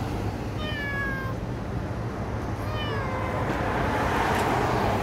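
A cat meows twice, about two seconds apart, each meow falling in pitch, over a steady low background hum.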